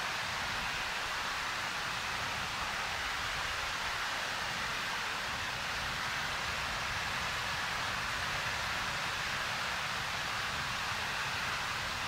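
Waterfall: a steady, even rush of falling water that does not change in level.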